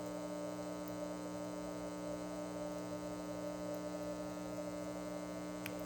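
Steady electrical mains hum with a buzzy edge from many even overtones, unchanging throughout; a faint tick sounds near the end.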